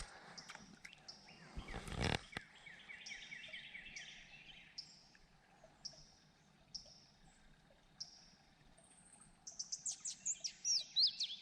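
Songbirds singing: one repeating a short high note about once a second, another giving a quick trill, and a burst of rapid high chirps near the end that is the loudest part. A brief rustle about two seconds in.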